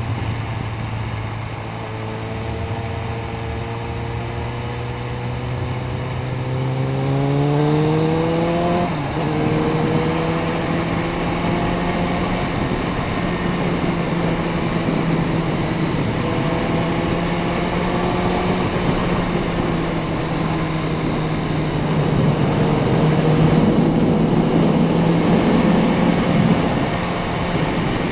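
Suzuki Bandit 650N's inline-four engine accelerating, its pitch rising for several seconds before a quick dip at about nine seconds as it shifts up. It then runs at a fairly steady speed, under a rush of wind and road noise.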